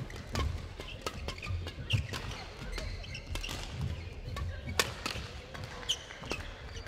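Badminton rackets striking a shuttlecock in a rally, a series of sharp hits with the loudest about five seconds in, along with players' feet thudding on the court and short shoe squeaks.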